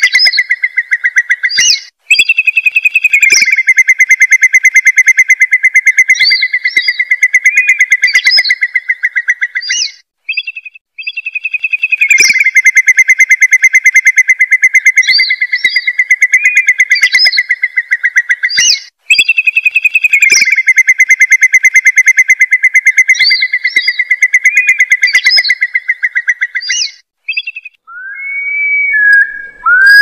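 Recorded curlew (gajahan) lure call: long, rapid bubbling trills with short higher piping notes mixed in. It comes in three phrases of about seven seconds each, with brief gaps between them. Near the end it changes to a few short rising whistled notes.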